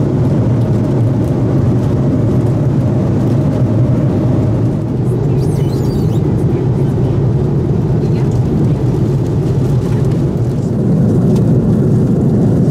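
Steady, loud cabin noise of an Airbus A330-300 in flight: a low, even rumble of airflow and its Rolls-Royce Trent 772B engines heard from an economy seat.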